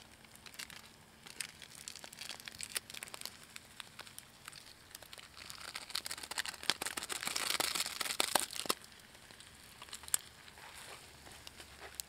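An instant-noodle sauce packet crinkling and rustling as it is opened and emptied over a pan of noodles. The run of crinkles is busiest in the middle and trails off over the last few seconds.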